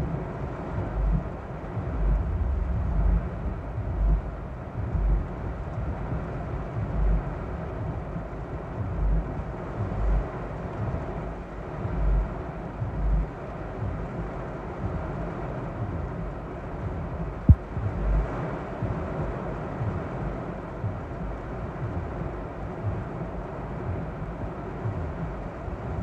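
Torrential rain pounding on a car's roof and windshield, heard from inside the car as a steady rush, with the windshield wipers sweeping. Irregular low thumps come every second or two, and a single sharp click sounds about two-thirds of the way through.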